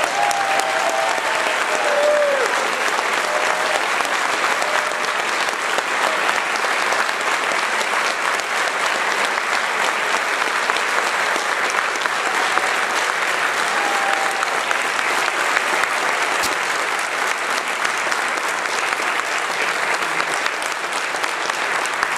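A large crowd applauding steadily, with a few voices faintly audible over the clapping.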